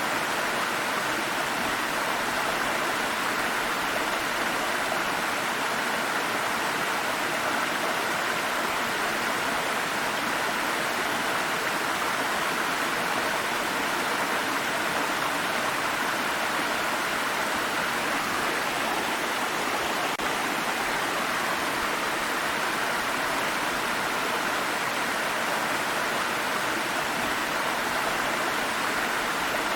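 Water stream flowing over rocks: a steady, even rush of running water.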